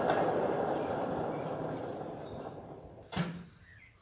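7¼-inch gauge live-steam locomotive, a model of an SNCB Type 5, running along the track with a steady rushing noise that fades as it moves away. One sharp knock about three seconds in.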